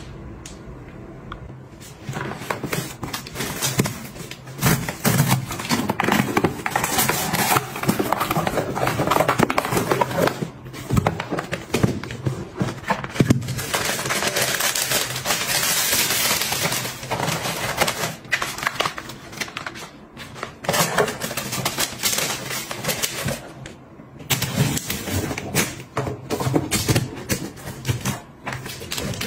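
Hands handling packaging: paper and cardboard rustling, with many quick taps, clicks and knocks as boxes and lids are moved about. It starts about two seconds in.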